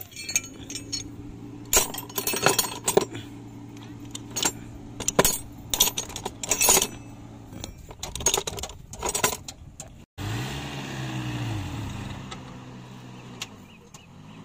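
Steel wrenches and hand tools clinking and rattling in a metal toolbox as a hand rummages through them, a quick run of sharp metallic clinks. About ten seconds in this stops abruptly and a steady hum with a wavering low tone takes over.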